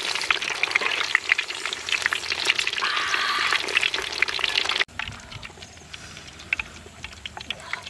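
Whole red tilapia frying in hot oil in a wok, a dense crackling sizzle full of small pops. About five seconds in it drops suddenly to a much quieter sizzle with scattered pops.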